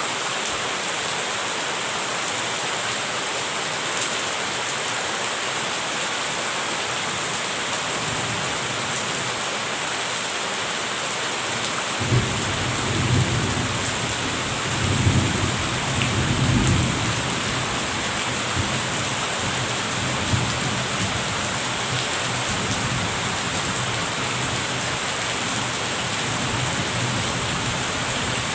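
Steady rain hiss, with a roll of thunder that starts suddenly about twelve seconds in, rumbles loudest a few seconds later and fades away.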